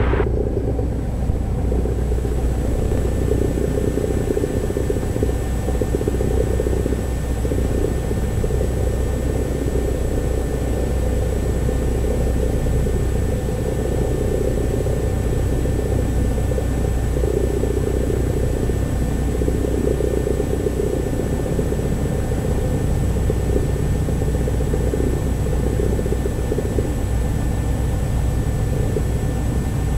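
Steady drone of a light training plane's engine and propeller at low power while taxiing, heard inside the cabin.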